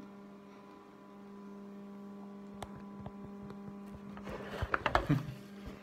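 Steady low electrical mains hum. About four seconds in, a short burst of knocks and rustling as the recording phone is grabbed and moved.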